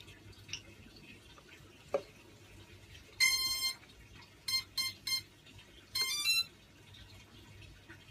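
Electronic beeps from the quadcopter's electronics: one long beep, three short beeps, then a quick run of rising tones, like the start-up beeps of brushless motor speed controllers when the battery is plugged in. Two faint clicks come before them.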